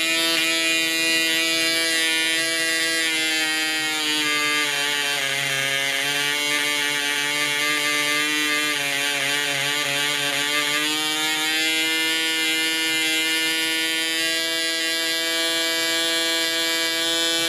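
PAW .55 model diesel engine running flat out with its propeller, a steady buzzing note. About four seconds in the pitch drops and runs unevenly as the needle valve is opened and the mixture goes rich, slowing the engine; near twelve seconds the revs climb back up and hold steady.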